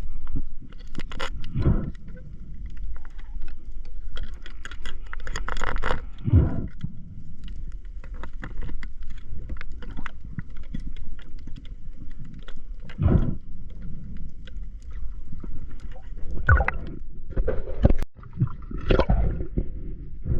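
Water sloshing and gurgling around a camera at sea, with a steady low rumble and several irregular loud rushes of a second or two, typical of a diver breathing hard through a snorkel.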